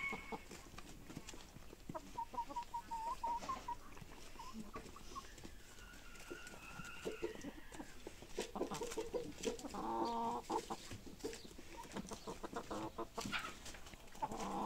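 Domestic chickens clucking and calling: a quick run of short clucks about two seconds in, higher drawn-out calls a few seconds later, and louder clucking around ten seconds in and again near the end, with scattered sharp clicks between.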